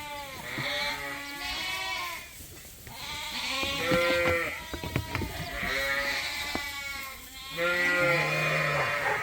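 Several sheep bleating over one another in a barn: a run of high-pitched lamb bleats, with a deeper ewe call about eight seconds in. A few sharp knocks come around five seconds in.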